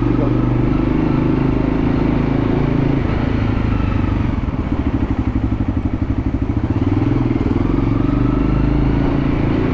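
Motorcycle engine running while riding. About halfway through it drops to a slower, throbbing beat, then picks up again near the end.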